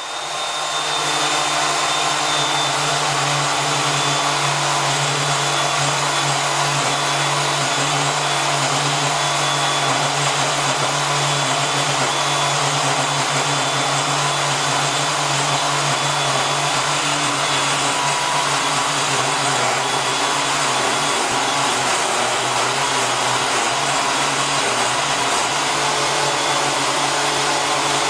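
Handheld electric power tool running continuously at a steady, unchanging speed.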